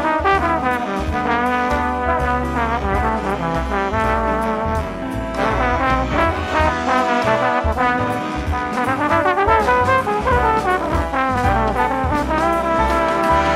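Big band jazz background music, with a brass section carrying the melody over a steady bass line.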